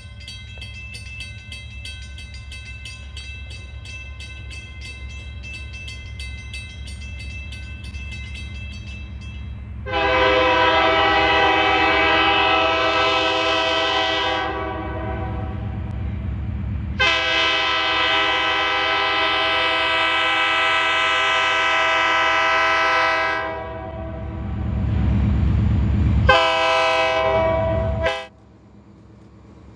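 Air horn of an EMD SD40T-2 locomotive blowing two long blasts and a short one, with a fourth starting at the end: the long-long-short-long grade-crossing signal. Under the horn the locomotive's 16-cylinder two-stroke diesel rumbles steadily as it lugs a loaded stone train.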